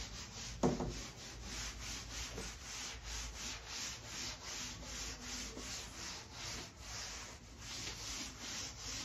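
A cloth rubbed back and forth over a chalkboard, wiping off chalk writing: a rhythmic swishing of about three strokes a second. A short voice sound just under a second in.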